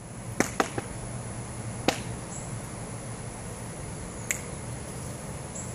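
Five short, sharp clicks: three in quick succession near the start, one about two seconds in and one just after four seconds, over a steady low hum.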